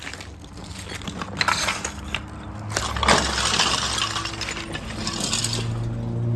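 Ceramic tiles being knocked off with a hammer: sharp clinks and tile pieces breaking and falling, with a louder crash about three seconds in.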